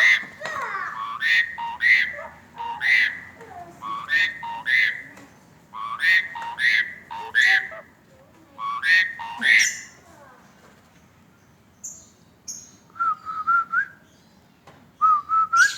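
Asian pied starling (jalak suren) singing, loud repeated phrases of clear whistles mixed with harsh chattering notes for about ten seconds, then two short wavering whistles near the end.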